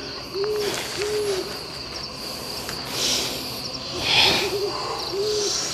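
An owl hooting: short low hoots, each under half a second, three in the first second and a half and two more near the end, over a steady high insect trill. Two soft hisses come in between.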